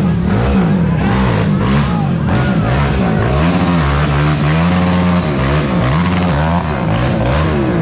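Racing ATV engines revving hard, their pitch climbing and dropping again and again with throttle and gear changes, and holding steady for about a second near the middle.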